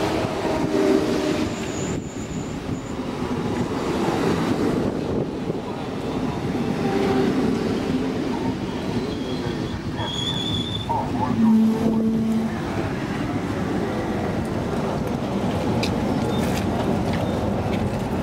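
Stockholm commuter rail X10 electric multiple unit rolling past along a platform, a steady rumble from wheels on the rails with a few brief high squeals.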